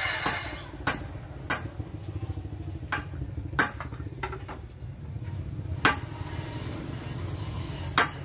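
Handheld circular saw finishing a cut in wood and winding down in the first half second. It is followed by about six sharp, irregular knocks of the saw and boards being handled on the plank table, over a low steady rumble.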